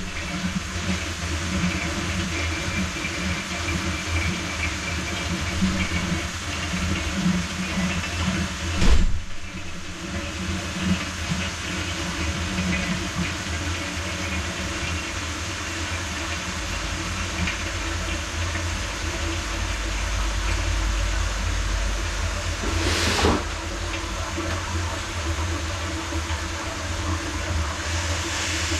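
Water hissing and rushing through household plumbing as the supply is turned back on to refill a newly installed water heater. A sharp thump comes about nine seconds in, and a short burst of hiss about twenty-three seconds in.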